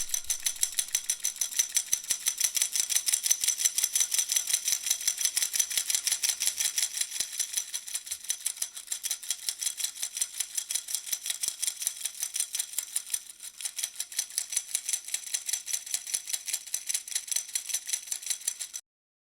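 Dog-shaped baby rattle shaken steadily, a fast, even rattling of several shakes a second that stops abruptly near the end.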